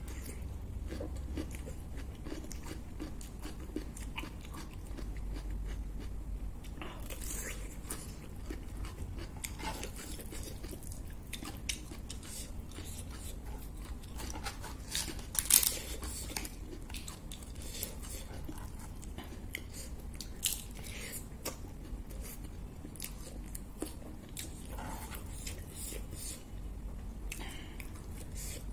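Close-miked chewing and crunching of food, starting with a bitten piece of raw cucumber, with many short crisp crunches and mouth clicks scattered through; the loudest crunch comes about fifteen and a half seconds in. Near the end, fingers mixing rice and curry on the tray add soft squishing.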